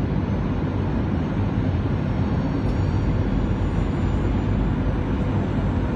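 Airliner cabin noise on approach: a steady low rumble of the engines and rushing air, heard from inside the passenger cabin.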